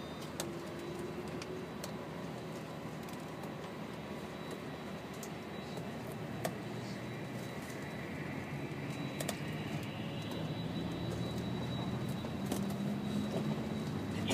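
Interior of an airport apron bus on the move: steady engine and road noise with a few light clicks and rattles, the engine note growing louder in the second half.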